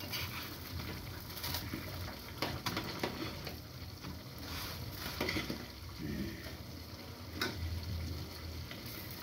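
Food sizzling in a hot frying pan on a gas stove while a spoon scoops it out into a bowl, clinking against the pan a few times.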